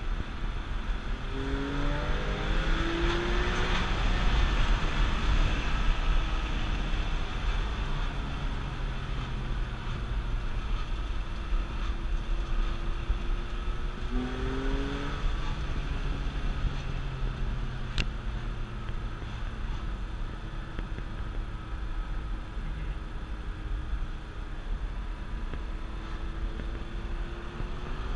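Porsche 997 Carrera S's 3.8-litre flat-six heard from inside the cabin while driving, over steady tyre and road rumble. The engine note rises a couple of seconds in and again around halfway, and there is one short sharp click about two-thirds of the way through.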